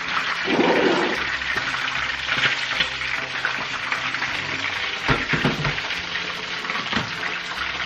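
Whole tilapia deep-frying in hot oil in a wok: a steady crackling sizzle, with a brief knock about five seconds in.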